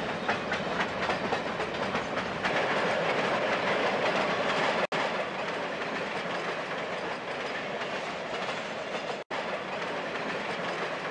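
Model train freight cars and caboose rolling along the layout track, wheels clicking rapidly over the rail joints for the first couple of seconds and then giving a steady rolling noise. The sound cuts out for an instant twice.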